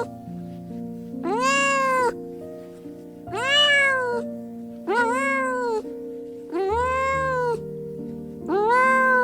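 A cat meowing five times, each meow about a second long and rising then falling in pitch, over background music.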